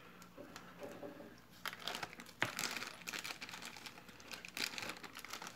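Costume jewelry being handled on a wooden tabletop: irregular light clicks and rustles of metal chains, clasps and beads as necklaces are moved and picked up, with a few sharper clicks.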